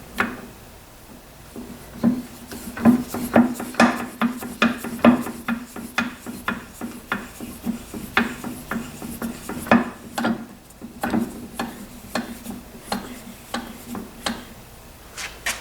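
Metal parts of a 1944 Delta-Milwaukee wood lathe being worked by hand during disassembly: a run of clicks and knocks, roughly two a second, with rubbing and scraping between them.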